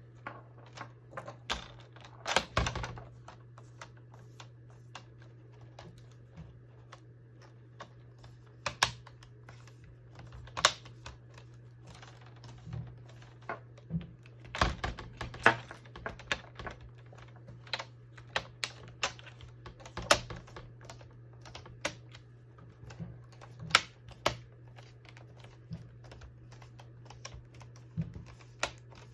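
Plastic screen frame (bezel) of a Dell Latitude E6400 laptop being pressed back onto the lid, its clips snapping into place. Irregular sharp clicks and taps throughout, a few of them louder.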